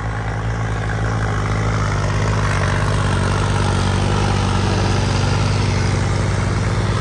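Diesel tractor engine running steadily, growing louder about a second in.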